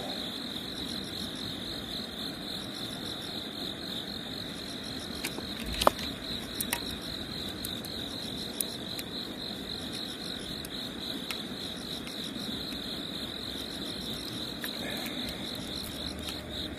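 Crickets chirping in a steady high trill, with a single knock about six seconds in.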